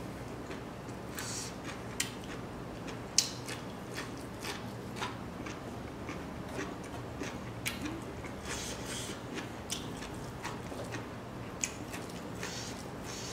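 Close-up eating sounds: a person chewing dry smoked pork and rice, irregular crisp clicks and crunches with a few louder snaps, and fingers picking at the food on a tray.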